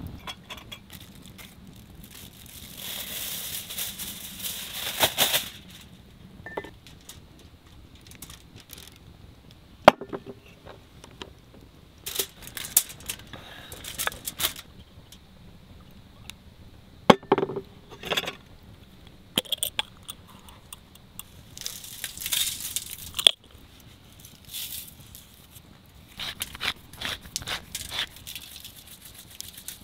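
Aluminium foil crinkling in short bursts as squash slices are slid off a wooden cutting board onto it, with a few separate sharp clicks.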